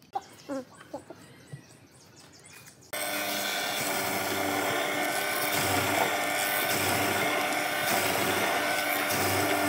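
A few light knocks of a wooden block being handled on a workbench, then about three seconds in a steady, loud run of a stationary woodworking machine, its narrow blade cutting a slot into a hardwood block.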